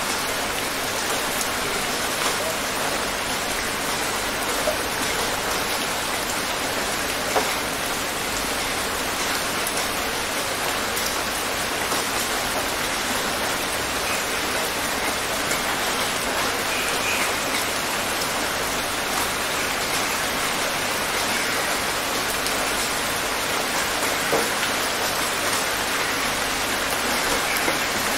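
Steady light rain: an even hiss of rainfall with scattered individual drops ticking on a hard surface.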